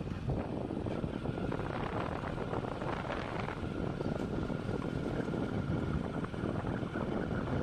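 Hero Splendor Plus motorcycle's 97cc air-cooled single-cylinder four-stroke engine running steadily as the bike is ridden, heard from the pillion seat.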